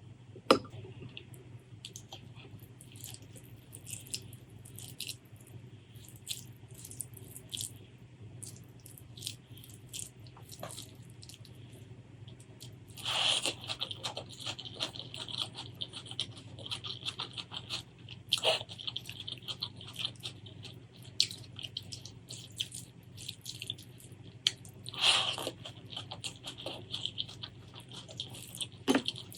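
Close-miked eating sounds: crunchy bites and wet chewing with many small mouth clicks, louder crunching bursts about 13 and 25 seconds in, over a steady low hum.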